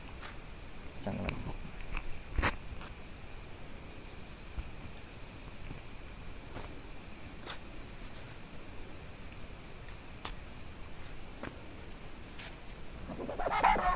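Crickets chirping in a steady, rapid, high-pitched trill, with a few faint clicks. A much louder sound starts just before the end.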